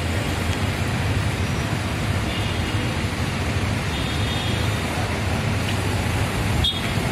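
Steady road traffic noise with a low rumble, and a single short sharp click near the end.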